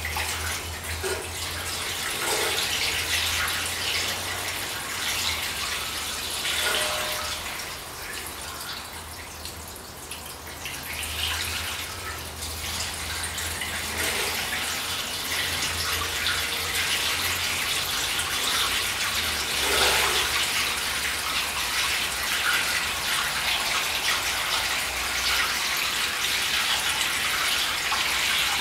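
Antifreeze coolant poured steadily from a jug into a Ford 800 tractor's new radiator, filling the cooling system. The pour eases off briefly about a third of the way through, then runs on and stops abruptly near the end.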